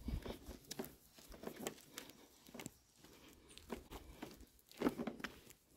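Faint footsteps on a paved road with light rustling and irregular soft ticks and crackles, and a louder low rustle near the end.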